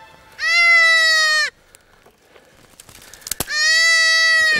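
Newborn feral goat kid bleating twice, two long high calls of about a second each, with a short sharp click between them.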